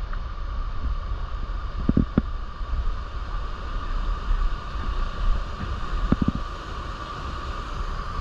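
Steady rush of a creek waterfall with wind rumbling on the microphone, and two brief bumps about two and six seconds in.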